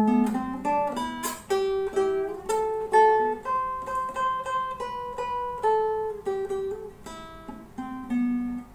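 Acoustic guitar played solo, fingerpicked: a slow melody of single plucked notes mixed with chords, each note or chord ringing for half a second to a second before the next.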